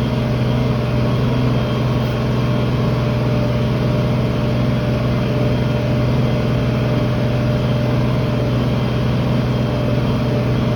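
Tractor engine running steadily under load while pulling a field cultivator, a constant low drone with no change in pitch.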